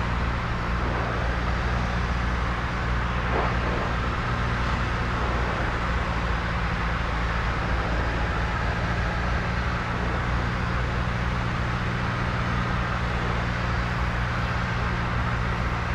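Single-engine Cessna's piston engine and propeller running steadily in flight, heard inside the cabin as an even drone mixed with airflow noise.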